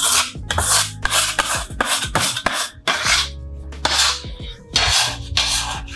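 Metal dough scraper rasping across sticky bread dough and the marble worktop, a quick irregular run of scrapes, a couple each second, over background music.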